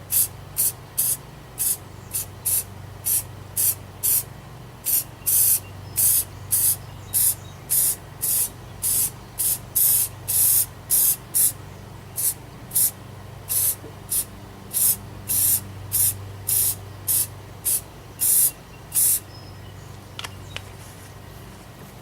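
Aerosol can of Loctite spray adhesive being sprayed in many short hissing bursts, about two a second, stopping shortly before the end. The adhesive is being laid onto the fabric of a ground blind to glue on a repair patch.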